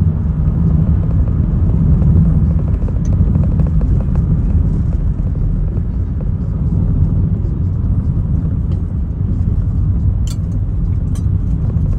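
Steady low rumble of a car's engine and tyres heard from inside the cabin while driving, with two sharp clicks near the end.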